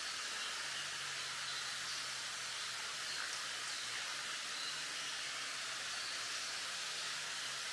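Wind rustling through bamboo leaves: a steady, even hiss, with a faint low hum underneath.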